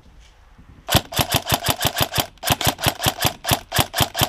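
Tokyo Marui HK416 DEVGRU airsoft electric rifle firing a rapid string of shots, about seven a second, starting about a second in, with a brief break partway through.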